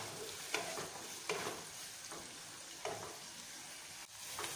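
Chopped onion sizzling in hot oil in a pan on low heat, with about five stirring strokes scraping the pan as it fries toward golden.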